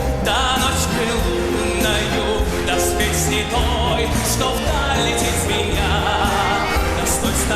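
Hockey goal song: a Russian song with singing over a full band and a steady pulsing bass.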